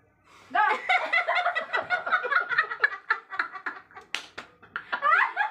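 Women laughing hard in rapid, choppy bursts, with a short hissing burst about four seconds in.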